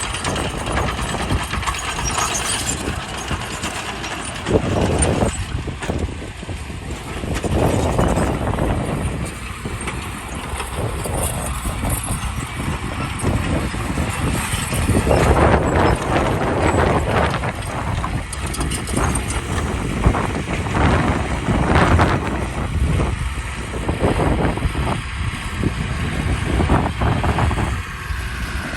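Heavy earthmoving machinery at work: diesel engines of dump trucks and a bulldozer running, with repeated knocks and surges in loudness.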